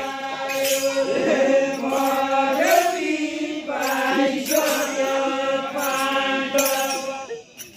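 A line of men singing a Deuda folk song together in unison: a chanted melody of long held notes, with the voices breaking off near the end.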